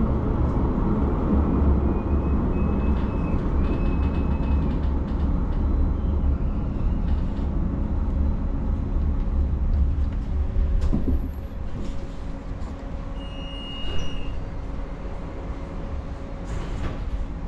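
Street traffic and light-rail noise: a steady low rumble that drops off about eleven seconds in and leaves a quieter hum, with a few short high beeps.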